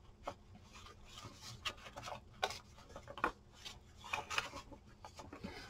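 Paper pages of a handmade journal rustling and sliding against one another as they are handled, in a series of faint, short rustles.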